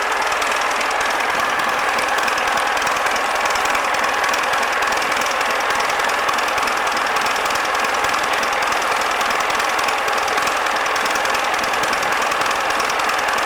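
Yanmar 6GH-ST six-cylinder marine diesel engine running steadily, with an even, rapid diesel clatter at a constant speed.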